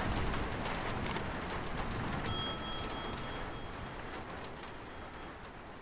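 Steady rain-like ambient noise fading out, with a few light ticks about a second in and a short, clear ping just over two seconds in.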